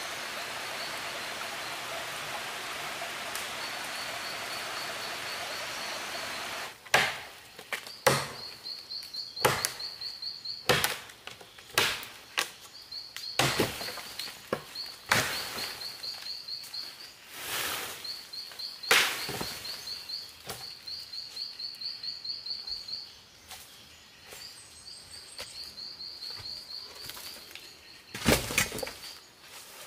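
An even hiss-like noise for the first several seconds, then a long run of sharp, irregular knocks and thuds, several of them loud. A high, rapidly pulsed chirping trill comes and goes throughout.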